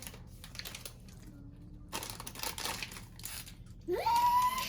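Packaging crinkling and rustling in irregular handfuls as it is handled, with a few light clicks. Near the end a toddler gives a short rising vocal sound.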